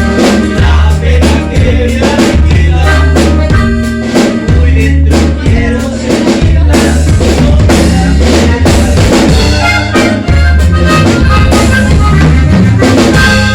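Loud music with a drum kit keeping a steady beat over a heavy bass line.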